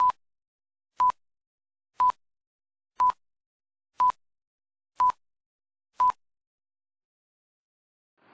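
Film-leader countdown beeps: seven short, identical high beeps, one each second, ticking off the numbers on the countdown.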